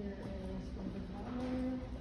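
Music with long held melodic notes.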